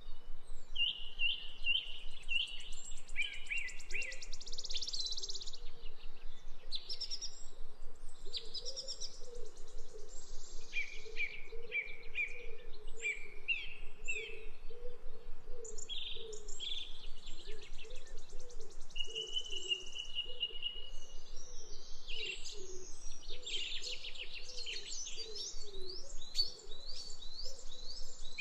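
Several songbirds chirping and singing in short, repeated phrases and trills. A lower wavering warble runs underneath from about four seconds in.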